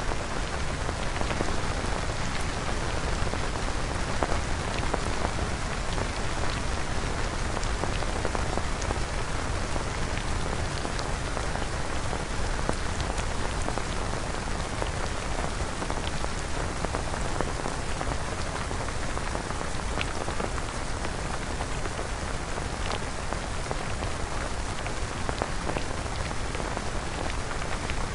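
Synthesized rain sound effect: a steady hiss of rainfall with scattered individual drop ticks.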